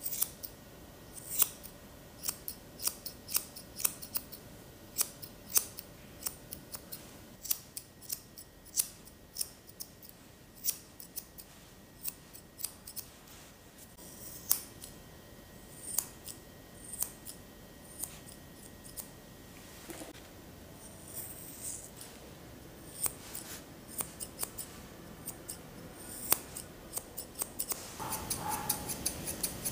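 Grooming scissors snipping through a poodle's curly coat: sharp, irregular snips, one to a few a second, with a quick run of rapid snips near the end.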